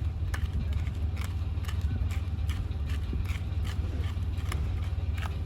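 Snow crunching in short, irregular strokes over a steady low rumble.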